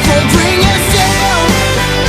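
Rock song playing: a singing voice over guitar and drums.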